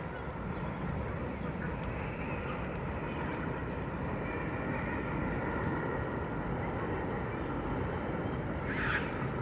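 New York City Subway R142-family train running through the station, a steady rumble with a faint motor whine that rises a little midway. A short, higher sound comes near the end.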